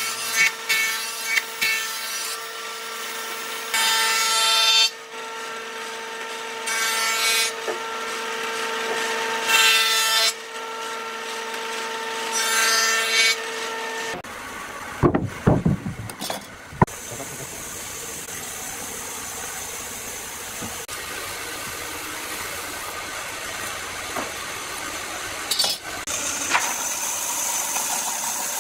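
Jointer-planer motor humming steadily while a rough tree-trunk log is pushed over its cutterhead, each of several passes bringing a burst of planing noise. About halfway through, the sound changes to a few knocks and then the steadier hum of a band saw running.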